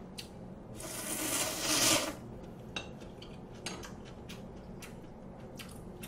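A long, loud slurp of a mouthful of cold ramen noodles, rising over about a second and stopping sharply, followed by scattered soft mouth clicks and smacks of chewing.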